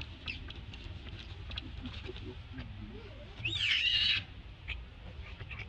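Baby macaque screaming: one loud, high-pitched scream whose pitch arches up and falls, about three and a half seconds in, with a few faint short squeaks around it.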